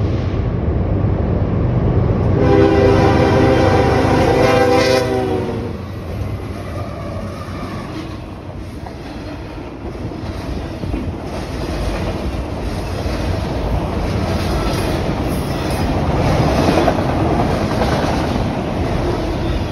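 Norfolk Southern freight train crossing a steel trestle: the diesel locomotive's horn ends a blast about half a second in and sounds a second long chord from about two and a half to five and a half seconds in. After that comes the steady rumble and clickety-clack of autorack cars rolling over the trestle.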